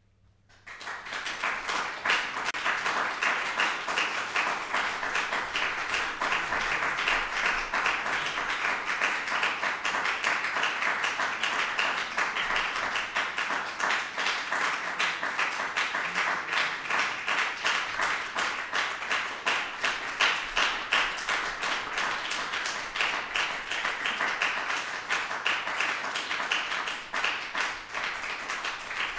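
Audience applauding: dense clapping starts about a second in and keeps up steadily.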